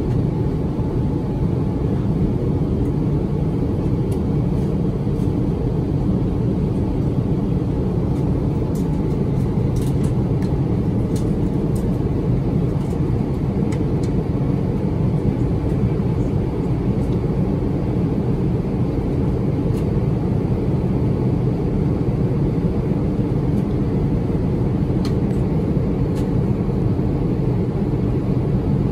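Steady low rumble of an Airbus A350-900's Rolls-Royce Trent XWB engines and rushing airflow, heard inside the cabin during the climb out, with a few faint clicks.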